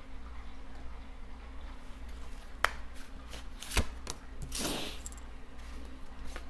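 A deck of gypsy fortune-telling cards being handled: a few sharp clicks and taps around the middle, then a short soft swish as a card is drawn and laid down on the table.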